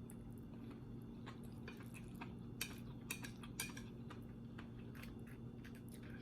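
Faint eating sounds: scattered sharp clicks and smacks of chewing and utensils, over a steady low electrical hum.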